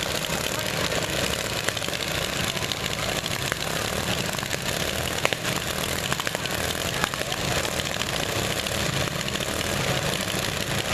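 Several lawn mower engines running at once, a steady mechanical drone, with a few sharp knocks around the middle.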